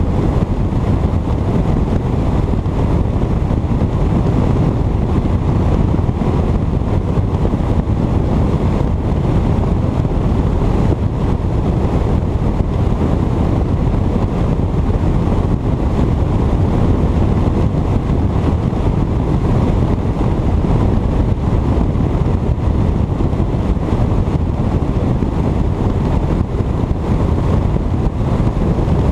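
Bass boat running at speed with its 150 hp outboard motor: a loud, steady rush of wind on the microphone over the motor and water noise.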